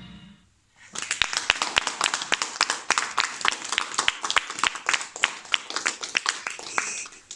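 Recorded song music stops, and after a short pause a small audience applauds for about six seconds, with the separate hand claps clearly heard.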